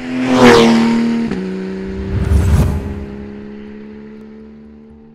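Intro sound effects: a car whooshes past with a drop in pitch, a low rumbling hit follows about two seconds later, and a held tone slowly fades away.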